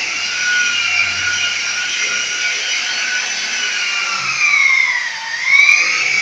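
A steady high-pitched machine whine, like an electric motor running. Its pitch dips for about half a second near the end and then climbs back.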